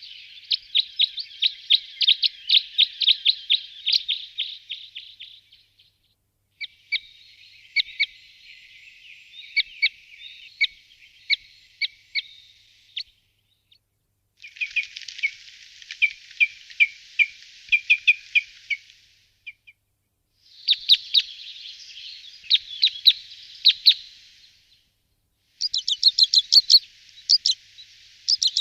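Red crossbills giving rapid strings of sharp, high chip notes in several bursts of a few seconds each, with short silent breaks between them.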